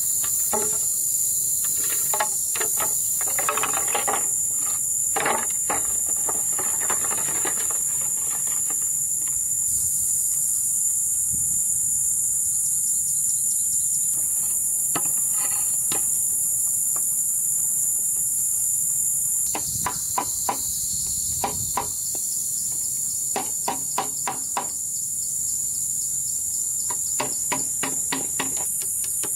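Steady, high-pitched insect chorus. Over it come scattered hollow knocks and clusters of taps as bamboo poles are handled, set down and struck.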